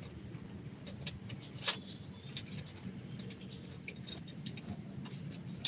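Scattered small clicks and taps, one sharper about two seconds in, over a low steady rumble.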